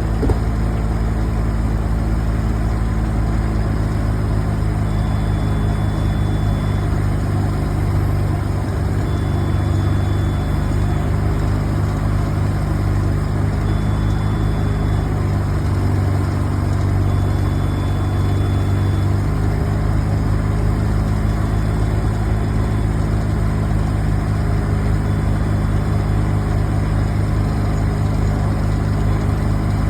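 An engine running steadily at a constant speed, with a low even drone and no revving.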